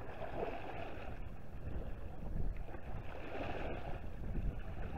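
Steady outdoor noise of moving river water with wind buffeting the microphone.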